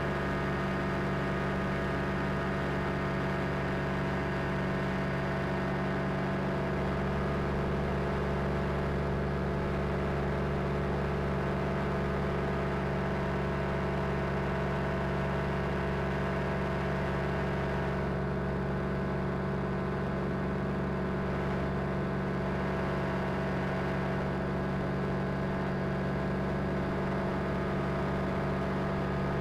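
Quicksilver ultralight aircraft's engine and propeller droning steadily in flight, an even multi-toned drone with a hiss of rushing air over it.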